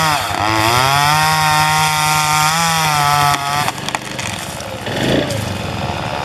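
Chainsaw cutting through a large tree limb at high revs, its pitch dipping briefly as it bogs in the cut about a quarter second in. About three and a half seconds in it drops back to a lower, rougher idle.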